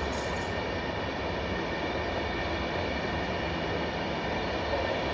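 PKP Intercity passenger coaches rolling steadily past on the rails: a continuous wheel-on-rail rolling noise with faint steady high tones above it.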